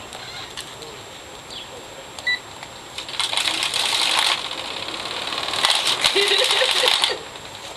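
Crinkling and clattering of an air conditioner's packaging being handled, in two bursts of about a second and a second and a half, the first about three seconds in, with scattered clicks around them.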